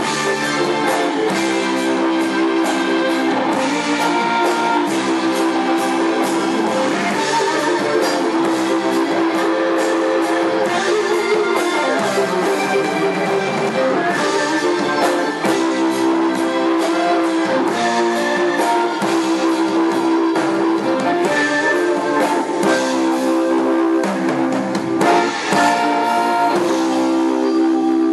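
Live blues band led by a Les Paul-style electric guitar playing held lead notes that bend up and down in pitch, over a drum kit.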